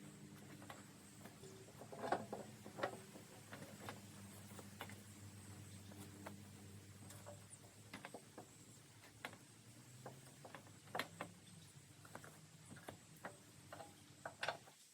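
Scattered light clicks, taps and knocks of metal parts and tools being handled, with louder clusters about two seconds in, about eleven seconds in and near the end, over a faint steady low hum.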